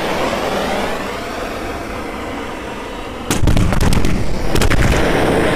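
LPG-filled balloons igniting one after another: a steady rushing noise, then from about three seconds in a rapid string of loud bangs and pops as the balloons burst into fireballs.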